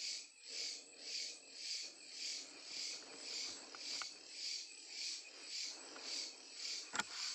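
Night insects chirping in a steady, even rhythm, a little under two pulses a second, with a sharp click near the end.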